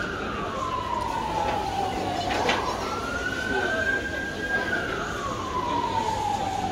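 Emergency vehicle siren wailing. Its tone slides slowly down, sweeps quickly back up about two seconds in, holds, then slides slowly down again, with crowd voices in the background.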